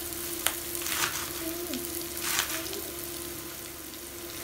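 Sliced onions, green chillies and garlic sizzling and crackling in hot oil in a pan on a medium flame, frying toward translucent, with a few brief scrapes of a wooden spoon stirring them. A steady low hum runs underneath.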